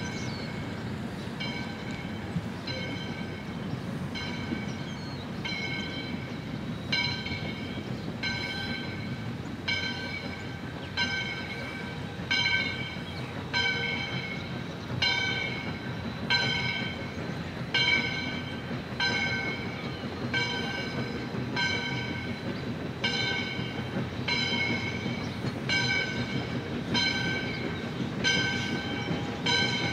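Steam locomotive's bell ringing steadily, about one and a half strikes a second, as the engine approaches at slow speed, over a low rumble of the moving train.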